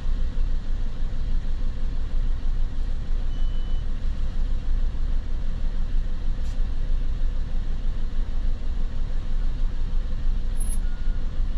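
Low, steady rumble of idling vehicle engines, with a short high beep about three seconds in.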